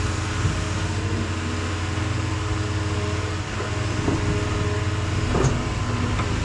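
John Deere excavator's diesel engine running steadily while it works, with a couple of short knocks about four and five and a half seconds in.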